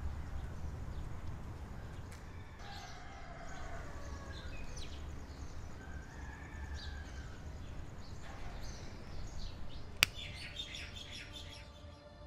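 Outdoor ambience: birds chirping and calling over a low steady rumble. About ten seconds in there is a single sharp click, the loudest sound, followed by a quick flurry of chirps.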